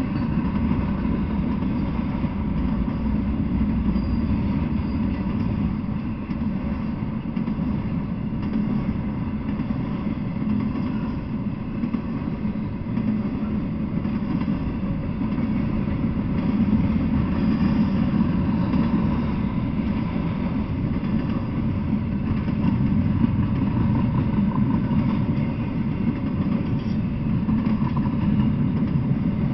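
Intermodal freight train passing at close range, its loaded trailer and container cars rolling by as a steady low rumble of steel wheels on the rails.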